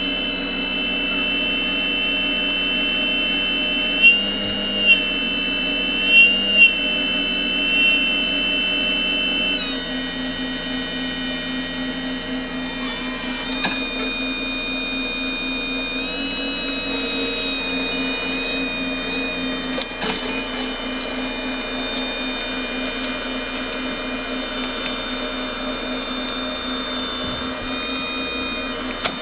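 Electric motors and gearboxes of a radio-controlled Hitachi 870 excavator model whining steadily as it tracks off a trailer, with a few brief louder bursts early on and a change to a lower whine about ten seconds in.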